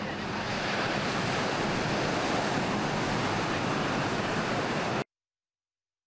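Large ocean waves breaking, a steady rush of surf and white water. It cuts off suddenly about five seconds in, leaving dead silence.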